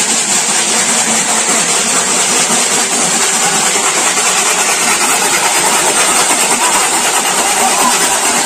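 Dense, continuous rattling of shaken tin cans, the contest 'geronsengan' noise, made to test the nerve of the caged white-eyes.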